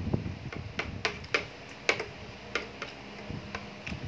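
Metal spoon and fork clinking against a ceramic plate in several sharp, irregularly spaced clicks, with chewing underneath.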